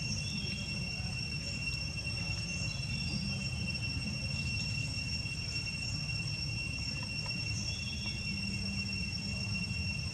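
Insects droning outdoors: a steady, unbroken high-pitched whine over a low background rumble, with a few faint chirps.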